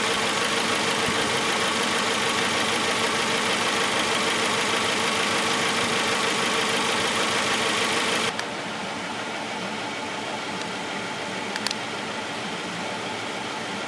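Suzuki four-cylinder coil-on-plug engine idling with a misfire, one cylinder dead from a shorted ignition coil. The steady running sound drops quieter about eight seconds in, with a couple of brief clicks near the end.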